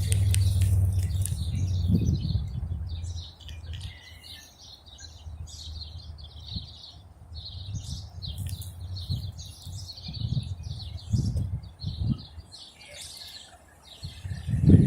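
Small birds chirping repeatedly in quick, high calls. A low rumble fills the first few seconds and then dies away.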